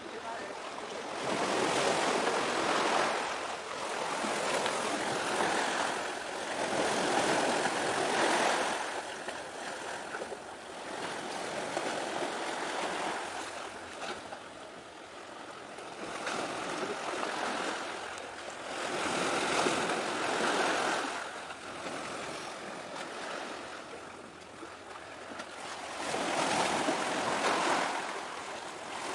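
Sea surf washing in on the shore, a rushing noise that swells and falls away every few seconds with each wave.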